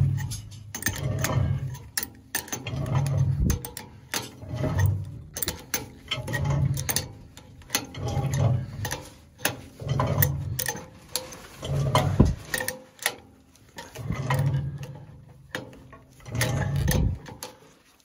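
Crescent adjustable wrench tightening a gauge-glass valve onto its threaded boiler tapping: a regular stroke about every two seconds, with small metal clicks and scrapes between the strokes.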